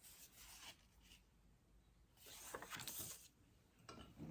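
Faint rustling of paper cards being handled by hand, in two soft stretches, the second starting about two seconds in and lasting a little over a second.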